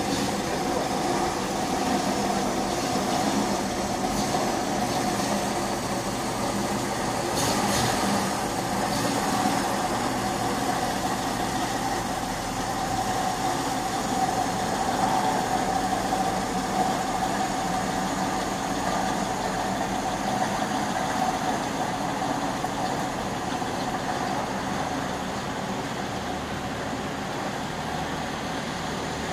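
1955 Studebaker truck's engine running steadily at low revs, idling as the loaded truck sits and then creeps off at walking pace.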